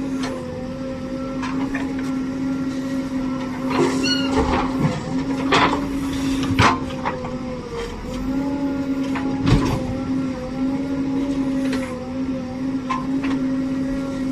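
JCB backhoe loader's diesel engine running steadily at working revs, its note dipping briefly twice, with several sharp clanks and knocks from the digging and loading work.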